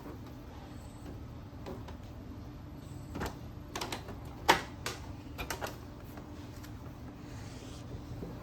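Sharp plastic clicks and knocks from an Epson ink-tank printer being handled and taken apart, a quick cluster of them in the middle with one louder knock, over a steady low hum.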